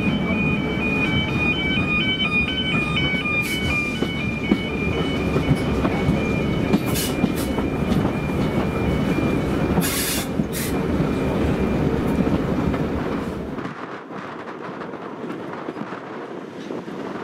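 Ride on a heritage train hauled by a Class 08 diesel shunter: the carriage rumbles steadily along the track, with a few sharp clicks from the wheels and rails. About three-quarters of the way through, the rumble cuts off suddenly and a quieter hiss is left.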